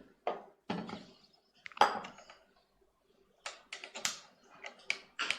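A series of light taps and clinks: a few short ones in the first two seconds, then a quicker run of small clicks near the end.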